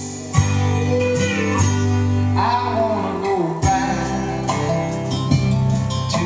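Country-style music with plucked guitar, playing from a pickup truck's cab stereo.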